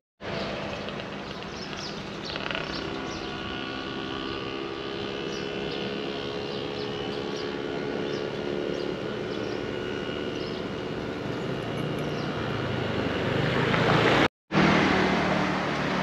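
Engine of a passing vehicle, a steady drone that grows louder as it draws nearer, broken by a sudden brief dropout to silence about two seconds before the end.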